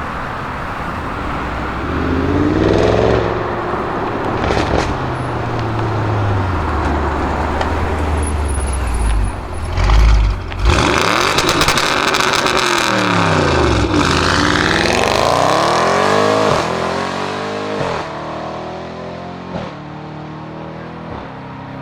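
Audi RS6 Avant C7's twin-turbo 4.0-litre V8 through a Milltek exhaust, revving and accelerating hard. It gives a loud low thump about halfway through, then a stretch of crackling, and then climbs in pitch with drops at the upshifts as it pulls away and fades.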